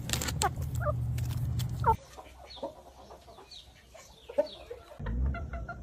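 Chickens clucking in short calls. The background changes abruptly about two seconds in and again near the end, as the clips change.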